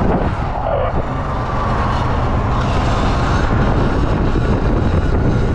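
Steady low rumble and rushing noise of riding a Sur-Ron electric dirt bike slowly, with wind and road noise on the microphone and the rushing swelling a little about three seconds in.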